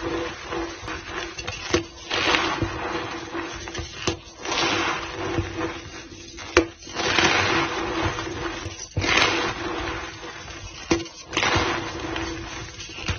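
White gym chalk powder being pressed and packed into a block, giving squeaky, crunching bursts about every two seconds with sharp clicks between them.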